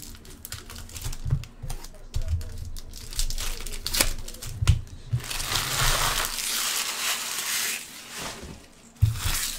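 Foil trading-card pack wrappers crinkling and being torn, with cards ticking and tapping as they are handled. About five seconds in comes a longer stretch of crinkling lasting roughly three seconds, and a sharp knock near the end.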